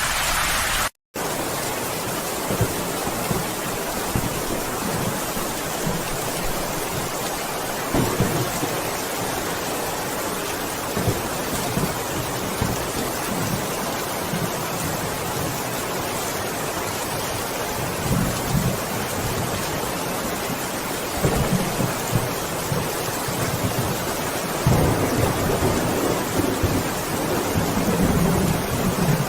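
Steady rain with several low rumbles of thunder, the strongest a few seconds before the end. The sound cuts out for an instant about a second in.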